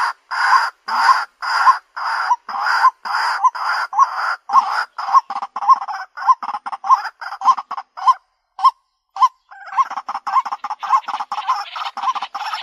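White-breasted waterhen calling: a long series of repeated harsh notes, about two a second at first, then coming faster, breaking off briefly about eight seconds in before resuming in a quicker, denser run.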